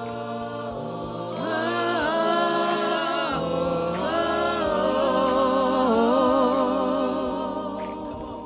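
A woman singing solo, holding long wordless notes with vibrato over steady, sustained low notes.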